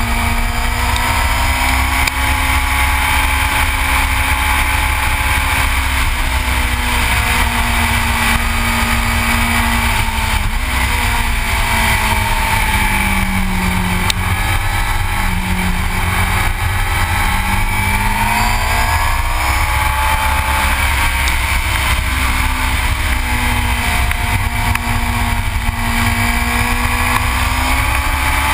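Yamaha R6 sport bike's inline-four engine running at speed, its pitch dipping for a few seconds around the middle and then rising again with the throttle, over heavy wind rumble on the microphone.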